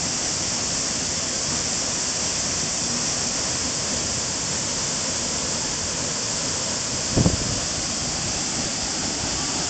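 Waterfall rushing, a steady hiss of falling water, with a single brief low thump about seven seconds in.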